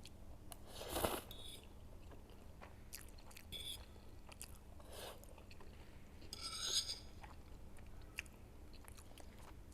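Close-miked chewing and mouth sounds of someone eating instant noodles, with a few louder wet mouth noises about a second in and again around five to seven seconds in.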